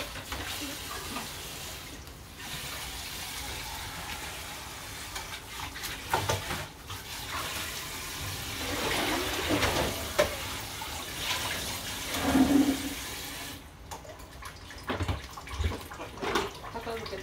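Kitchen tap running into the sink, with a few knocks and clatters of things being handled; the water stops abruptly about fourteen seconds in, and a few more knocks follow.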